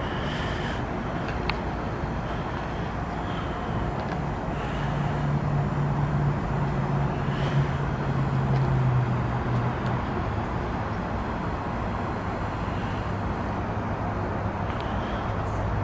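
RunTru heat pump outdoor unit running through its defrost cycle: a steady mechanical hum over an even noise. A deeper hum swells about four seconds in, steps down in pitch, and eases off about ten seconds in.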